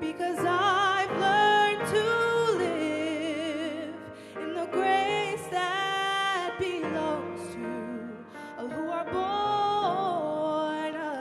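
Worship song: singers holding long notes with vibrato over instrumental accompaniment.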